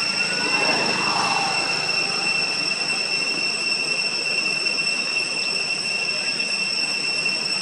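Insects, such as cicadas, droning steadily at a high pitch over a constant hiss, with a faint short call about a second in.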